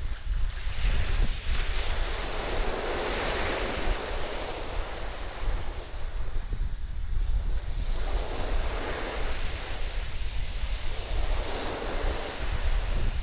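Surf breaking and washing up the sand in repeated swells that rise and fall every few seconds, with strong wind buffeting the microphone as a steady low rumble.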